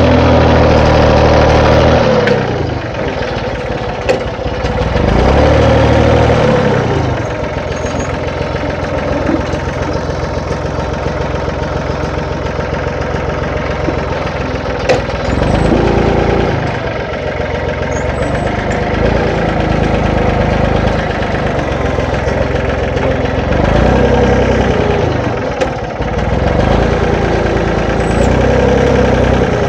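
Farm tractor engine running steadily, its note swelling and dipping and recovering several times as the front-end loader's hydraulics are worked to pull T-posts out of the ground. A few short, sharp knocks come through.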